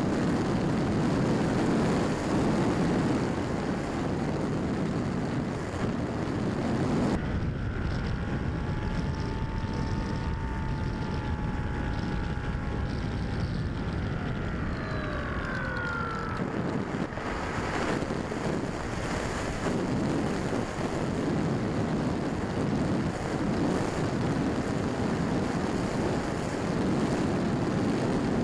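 Quanum Observer electric RC plane in flight, picked up by its onboard camera: a steady rush of wind and propeller noise. For about ten seconds in the middle the rush eases and the motor's whine comes through, falling in pitch near the end of that stretch as the throttle comes back.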